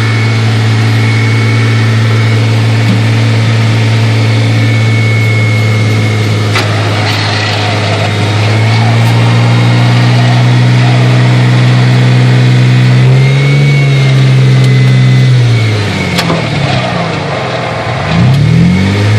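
A steady motor drone that steps up a little in pitch about halfway through, drops near the end and then wavers up and down.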